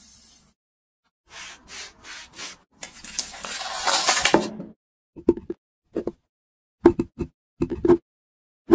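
Food-preparation sounds: some rubbing and scraping, a hissing burst about three seconds in, then a string of short, irregular knocks on wood, like a knife on a cutting board.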